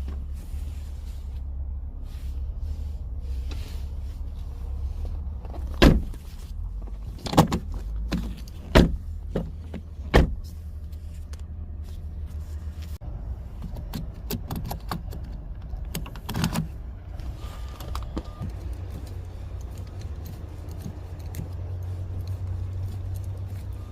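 A handful of sharp clicks and knocks, about five, spread over a few seconds, over a steady low rumble.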